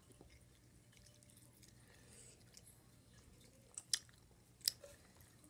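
Faint chewing of sour gummy candy, with a few short, sharper mouth clicks about four seconds in.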